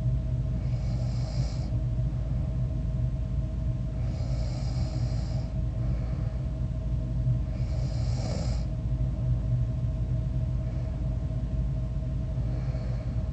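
A sleeping person snoring, a breath about every four seconds, the last one fainter, over a steady low hum.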